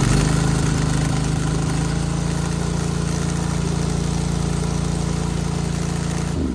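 Honda GX690 V-twin engine on a pressure washer running steadily at full throttle with the choke out, just after a key start. Near the end it is switched off and winds down with falling pitch.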